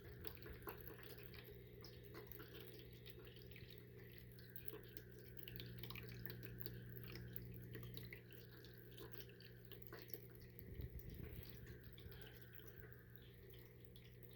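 PetSafe pet water fountain trickling faintly, with small drips and light ticks as water falls into the bowl.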